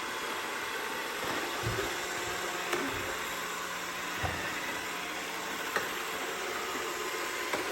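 iRobot Roomba 692 robot vacuum running, its vacuum motor and brushes giving a steady whirring hiss, with a few faint low thumps.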